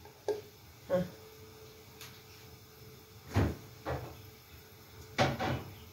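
Kitchen handling noises: a few scattered knocks and clunks, the loudest a little past the middle and a short cluster near the end, over a faint steady hum.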